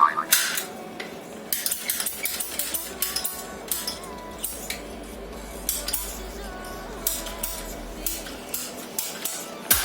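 Irregular sharp metallic clicks and clinks, a few a second, from handling plumbing tools and fittings.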